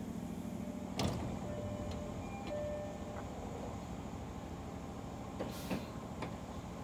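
JR 205 series 600 electric train standing at the platform, its equipment humming steadily. The air-operated doors open with a sharp clunk about a second in, and a short hiss of air comes near the end.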